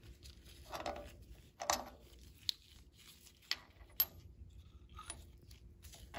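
Steel bolts clicking and tapping against the tractor's hydraulic lift cover as they are set into its bolt holes one at a time: about half a dozen light, sharp metallic clicks, irregularly spaced.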